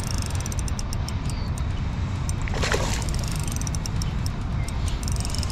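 A hooked trout splashes briefly at the surface about two and a half seconds in, over a steady low rumble.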